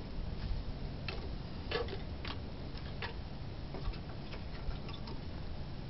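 Scattered sharp crackles and pops, at uneven intervals, from the wood-fired ammo-box stove with steak cooking on its hot top, over a low steady rumble.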